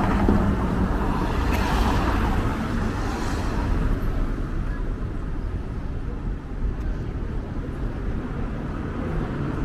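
Road traffic at a street crossing: cars driving past with a steady rumble of engines and tyres, one passing more loudly about two seconds in.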